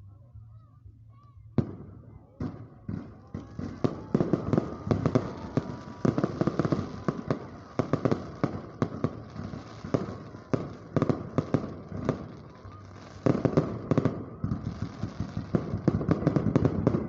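Fireworks going off: after a quiet second or so, sharp bangs start and quickly build into a dense, rapid barrage of cracks and pops. It eases briefly about twelve seconds in, then grows heavier again.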